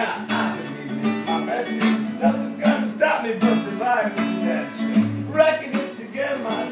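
Nylon-string classical guitar strummed in a steady rhythm, about two strums a second, with other stringed instruments playing along.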